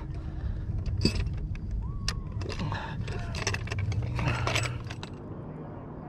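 Fishing gear being handled on a boat deck while a fish is readied for weighing: scattered clicks, knocks and light rattles over a steady low rumble.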